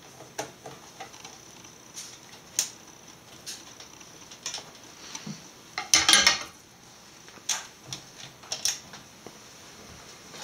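Scattered light clicks and taps of a screwdriver and small screws against the computer's plastic back cover, with a louder burst of clattering about six seconds in.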